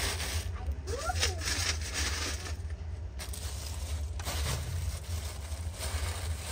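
Plastic bag crinkling and dry flakes rattling as hands rummage and scoop inside it, in irregular bursts over a steady low rumble.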